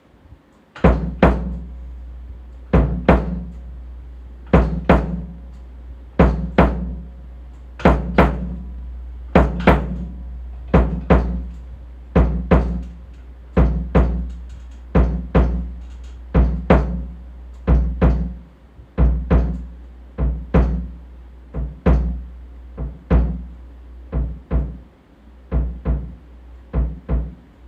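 Drum played as a heartbeat sound effect: paired low, booming hits (lub-dub) that start about a second in, slow at first, then gradually quickening like a racing pulse.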